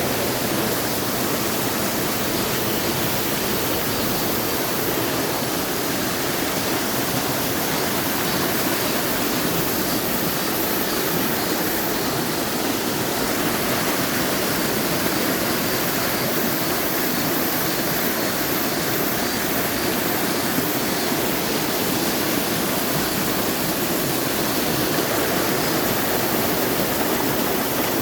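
Mountain stream in a valley, water rushing steadily over rocks.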